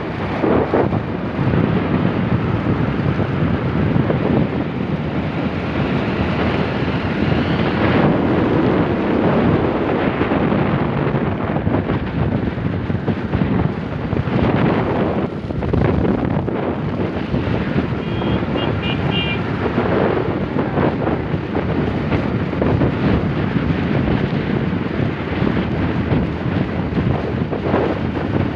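Wind buffeting the microphone over a steady noise of rain and road traffic, with a brief run of short high tones about two-thirds of the way through.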